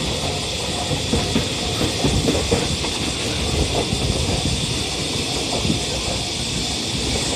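Freight train rolling past at a level crossing: a steady rumble of wheels on rail with light clatter. Over it the crossing's warning bell rings on and on with a quick, even ding.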